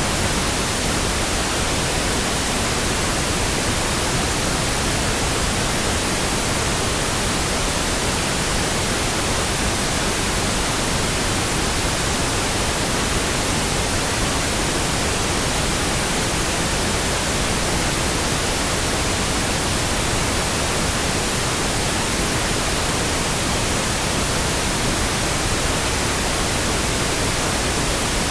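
Steady, unchanging synthetic noise for sleep, billed as pink noise: an even hiss spread across all pitches with no rhythm, tones or breaks.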